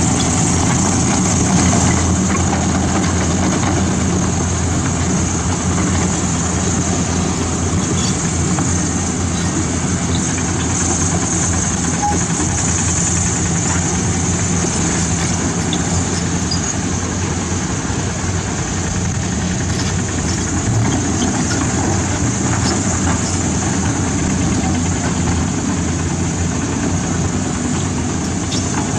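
Caterpillar 320D hydraulic excavator's six-cylinder diesel engine running steadily, a low even hum with no change in pitch.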